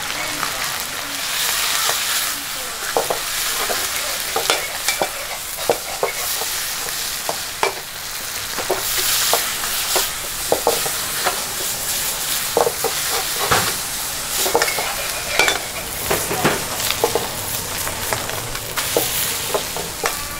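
Wide rice noodles and chicken sizzling in a hot wok, with a metal ladle repeatedly scraping and clanking against the wok as they are stir-fried.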